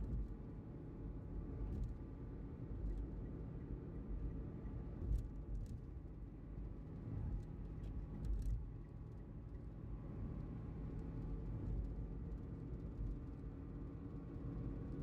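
Car driving along a highway: a steady low rumble of tyres and engine, with a faint steady hum and a couple of light clicks near the middle.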